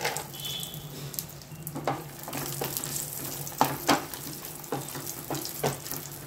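Cashew and almond pieces sizzling in hot ghee in a nonstick frying pan, stirred with a wooden spatula. Scattered clicks and knocks come from the spatula and the nut pieces against the pan.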